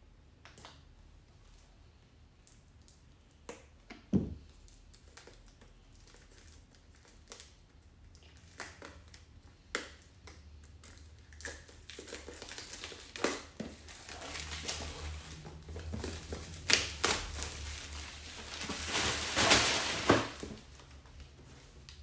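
Scissors snipping at a cardboard product box's seal with scattered sharp clicks, then plastic and cardboard packaging rustling and crinkling as the box is unwrapped, loudest for a couple of seconds near the end.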